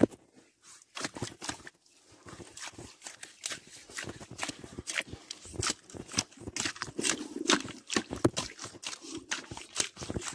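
Handling noise of fingers on the phone that is recording: a quick, irregular run of short clicks and scrapes close to the microphone.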